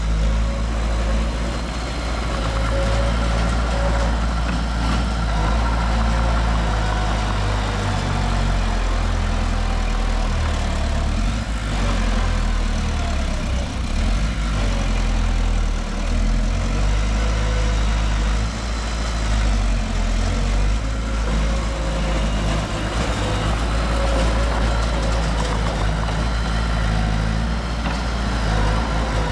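Heavy diesel earthmoving machinery engine running steadily with a deep low rumble, holding a constant level throughout.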